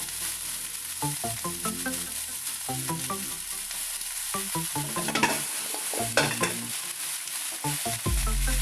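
Light background music of short plucked notes over a steady cooking hiss, with stirring and clatter about five to six seconds in.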